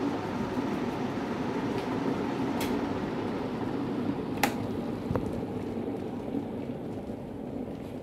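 Morphy Richards Flamio electric kettle heating about a litre of water near the boil: a steady rumble of water coming to the boil. A sharp click about halfway through is the loudest moment, and the rumble eases slightly toward the end.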